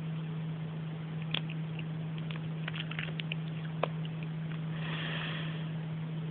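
Steady low electrical hum, with scattered small clicks and rustles and a short breathy sniff near the end.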